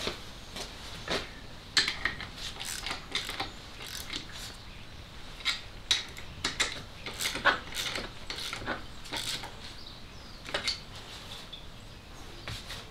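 Hand tools clicking and clinking against metal in irregular bursts as a spanner works the bolts of a car's engine mounts.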